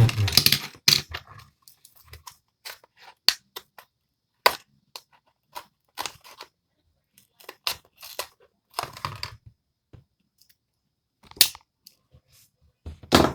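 Pocket knife cutting and prying at plastic toy packaging: irregular sharp clicks and cracks with short scraping, crinkling bursts, separated by pauses.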